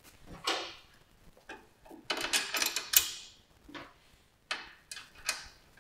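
Metal parts handled at a motorcycle's rear wheel and paddock stand: a series of short knocks and clicks, with a denser run of clatter about two to three seconds in.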